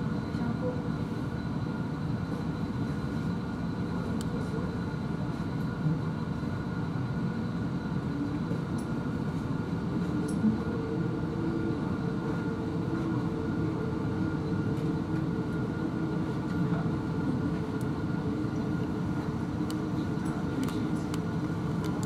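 Steady low background hum of indoor machinery or ventilation, with faint steady higher tones held over it.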